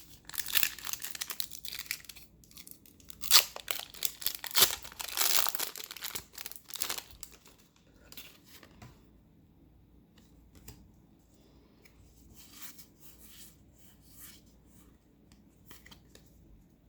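A foil trading-card booster pack being torn open, the wrapper crinkling loudly for about the first seven seconds. After that there are only faint clicks and rustles of cards being handled.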